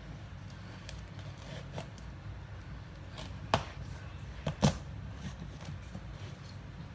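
Kitchen knife cutting lengthways through a hard-skinned spaghetti squash on a wooden chopping board: small scattered ticks, then two sharp knocks about halfway through.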